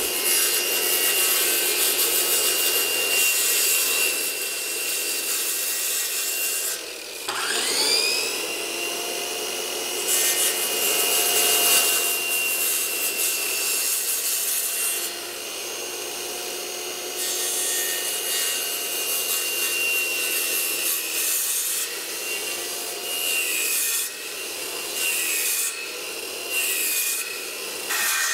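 Two circular saws, a 7¼-inch Ryobi and a Porter-Cable, running at the same time and making shallow depth cuts across clamped lumber: a steady motor whine under the hiss of the blades in the wood. About seven seconds in the whine drops away and winds back up, and near the end the motor pitch dips several times.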